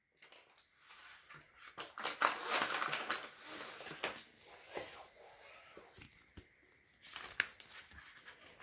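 Light rustling of paper and packaging with small knocks of wooden pieces as a cardboard box of wooden toy parts is rummaged through. Near the end an instruction booklet is handled and opened, with more rustling and a sharp click.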